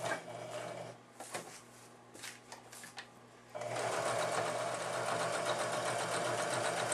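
Kenmore electric sewing machine stitching trim onto fabric. It runs for about a second, pauses for a couple of seconds with only a few faint clicks, then runs steadily again from about three and a half seconds in.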